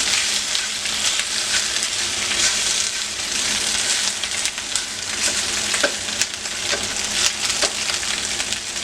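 Food frying in hot oil in a pan: a steady sizzle dotted with frequent crackles and pops.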